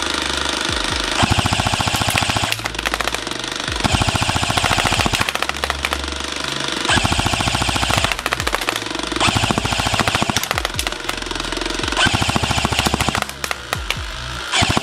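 Cybergun/A&K MK46 airsoft electric gun, an M249-type light machine gun, firing full auto on an 11.1 V LiPo battery. It fires a string of short bursts, each about a second long, the gearbox cycling in a fast, even rattle with brief pauses between bursts.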